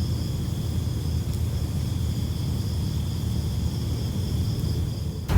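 Outdoor ambience: a steady low rumble with a continuous high-pitched insect drone over it, cut off at the very end.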